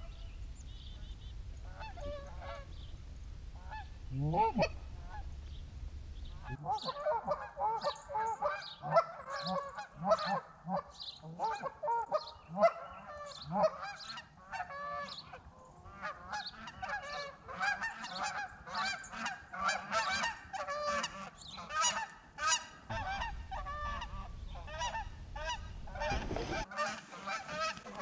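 Flock of Canada geese honking: a few scattered calls at first, then many overlapping honks once the flock is close, coming in low over the decoys. Low wind rumble on the microphone in the first few seconds and again near the end.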